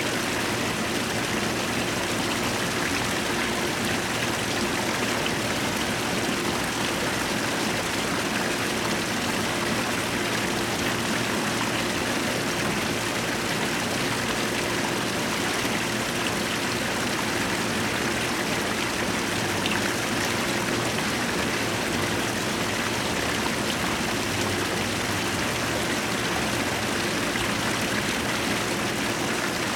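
Koi pond water running steadily, an even rushing splash with a faint low hum beneath it.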